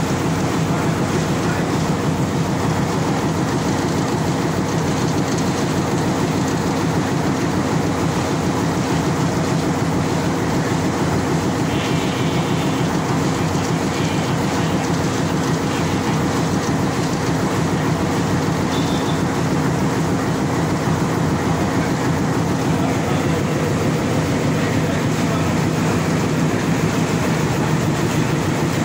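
Class M4 diesel-electric locomotive's engine running steadily while the locomotive stands coupled to a wagon, a loud, even hum that does not rise or fall.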